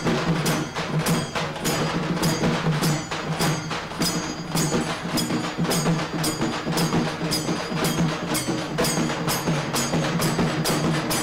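A folk orchestra playing live: a steady beat of sharp, ringing percussion strikes, about three a second, over held pitched notes.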